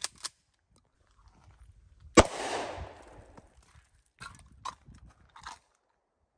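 A single pistol shot about two seconds in, its echo dying away over about a second. Two sharp clicks come right at the start, and a few faint clicks follow after the shot.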